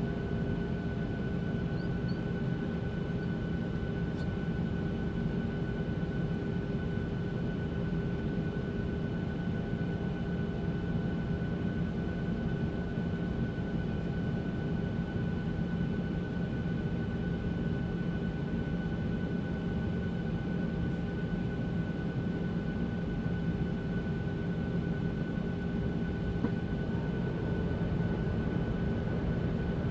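Cabin of an airliner in cruise flight: a steady low rumble of engine and airflow with a constant hum of a few fixed tones.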